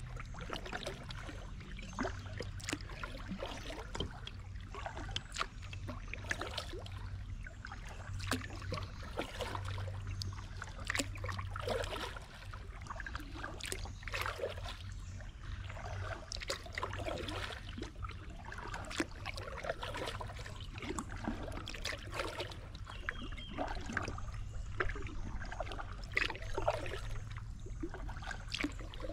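Kayak being paddled on a slow river: irregular small splashes, drips and trickling water from the strokes, with light clicks and knocks.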